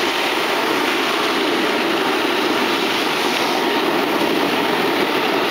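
Snowboards sliding over snow, a steady rushing, scraping noise as the riders glide down the slope.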